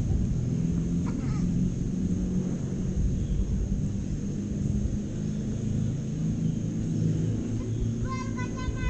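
Steady low rumble of motor vehicle engines, with a thin, steady high insect drone above it. Near the end comes a short, rapid trill of repeated notes.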